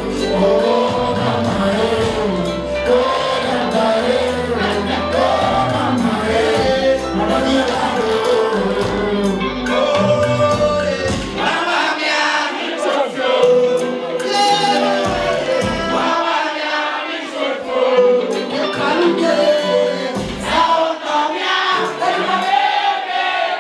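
Live music with singing voices, many voices together, over a band track whose deep bass drops out about halfway through, coming back only briefly.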